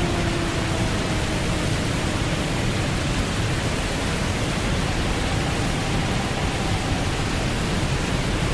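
Steady, even rushing of ocean surf. Over it, a long held tone falls slightly and fades out in the first couple of seconds.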